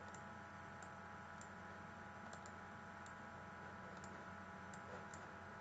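Faint computer mouse clicks, about nine at irregular intervals, over a steady low electrical hum.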